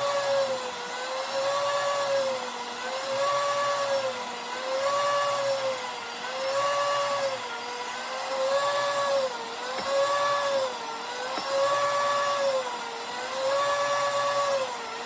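Electric meat slicer's motor running with its blade spinning as a smoked turkey breast is pushed back and forth through it. The whine sags in pitch and recovers with each stroke, about once every one and a half seconds, as the blade loads up on the meat.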